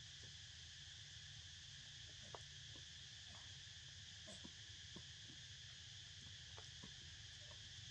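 Faint steady insect chorus with a high, even hiss-like drone, and scattered soft ticks and rustles of a baby macaque's hands picking through dry leaves and grass.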